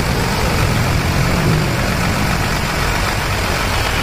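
Road traffic noise dominated by a motor vehicle engine running steadily close by, a constant low rumble without breaks.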